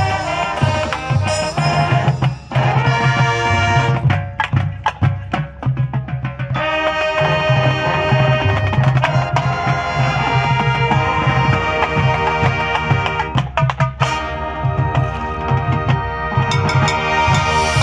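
Marching band playing: sustained brass chords over a driving bass-drum pattern, with sharp percussion hits from the battery and front ensemble.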